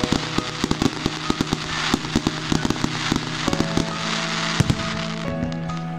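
Fireworks display: rapid crackling pops from glittering shell bursts, thinning out after about three seconds, with a louder bang about four and a half seconds in. Background music with sustained notes runs underneath.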